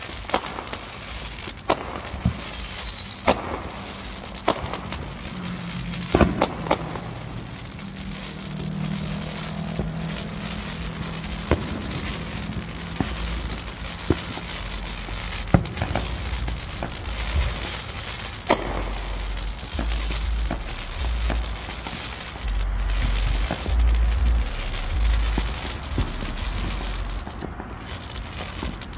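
Fireworks going off: sharp bangs and pops at irregular intervals over a crackling haze, with a brief falling whistle twice. A low rumble runs through the second half.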